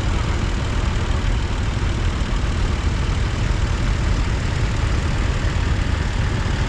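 Vintage tractor engines idling: a steady low rumble with no rise or fall in pitch.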